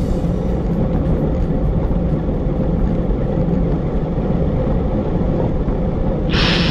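Steady wind and road noise on an action camera's microphone while riding a road bike at about 21 mph. Loud rock music cuts in near the end.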